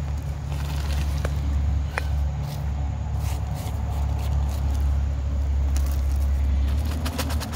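A few small rocks ticking and rattling as they are dropped by hand into a cardboard confetti-cannon tube, with a cluster of ticks near the end, over a steady low rumble.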